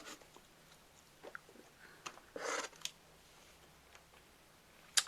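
Faint handling of felt-tip markers: a short scratchy rub a little past two seconds and a few small clicks.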